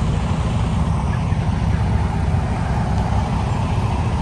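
A vehicle engine idling steadily nearby, a loud, even, low-pitched running sound.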